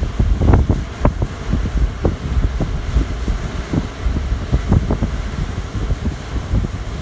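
Wind buffeting the microphone in irregular gusts, over the steady wash of ocean surf.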